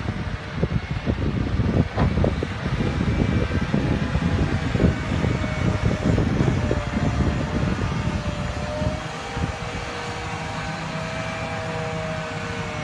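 Scania heavy truck driving slowly past with its diesel engine running. A rough, uneven low noise lasts about the first nine seconds, then it settles into a steadier engine hum with a faint whine that drifts in pitch.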